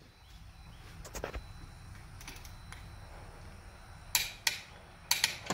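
Metallic clicks of a click-type torque wrench on cylinder head bolts as they are torqued down: a few scattered clicks, then two sharp pairs of clicks near the end as the wrench breaks at its set torque.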